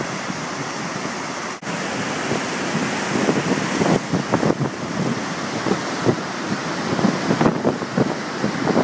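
Steady rushing of a large, powerful waterfall, with wind buffeting the microphone in irregular low thumps from about two seconds in.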